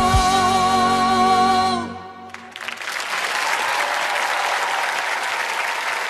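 A young female singer holds the song's long final note with vibrato over the backing music, which cuts off just before two seconds in; about half a second later the audience bursts into sustained applause.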